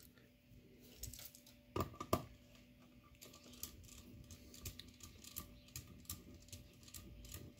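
Faint clicks and small scrapes of a precision screwdriver turning the screws of a solar charge controller's wire terminals and wires being pushed in, with two sharper clicks about two seconds in.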